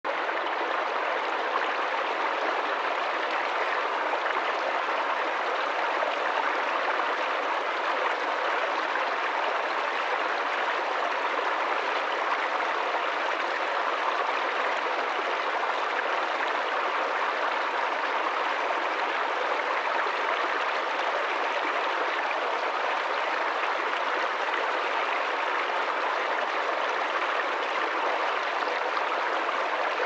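Small woodland stream pouring over rocks and a fallen log into a shallow pool: a steady, unbroken rush of running water.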